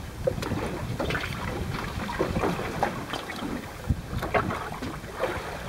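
Wind buffeting the microphone on a small boat at sea, with scattered light clicks and knocks as the spinning rod and reel are handled during the fight with a fish.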